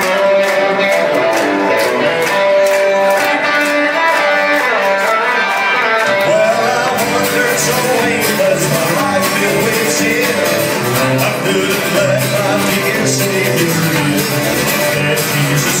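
Live band playing a guitar-driven song with singing. Sharp beats come about two to three a second at first, and the sound grows fuller and lower from about six seconds in.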